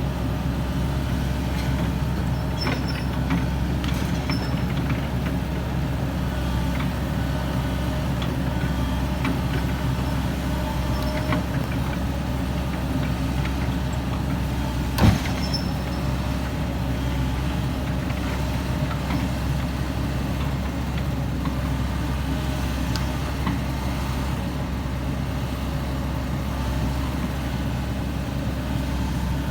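Heavy diesel engine running steadily, with scattered light clicks and one sharp bang about halfway through.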